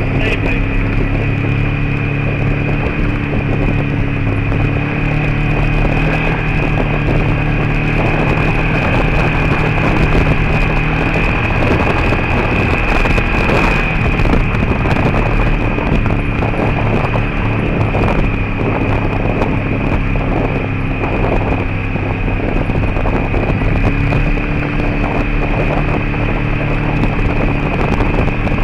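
A vehicle driving steadily along a gravel road: engine running at cruising speed, its pitch shifting a few times, over continuous tyre-on-gravel and wind noise, with a steady high whine.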